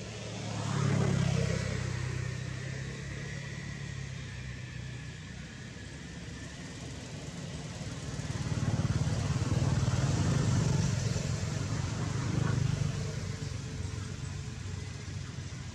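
Motor vehicle engines passing in the background, a low rumble that swells about a second in and again for several seconds in the second half.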